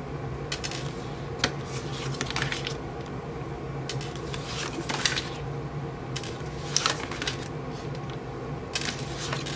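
Oracle cards being flipped and laid down on a tabletop by hand: soft, irregular clicks and slides of card stock, roughly one a second, over a low steady hum.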